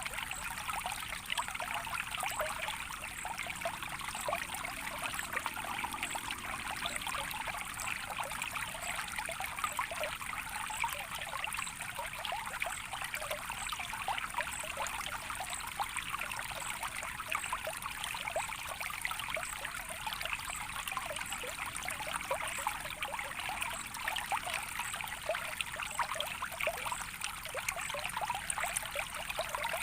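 Natural water flowing and trickling steadily, with a constant patter of small splashes and gurgles.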